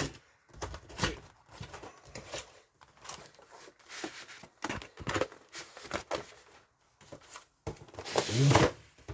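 Packaging of an impact socket set being opened and handled: irregular clicks, knocks and rustling, with a longer scraping rustle near the end.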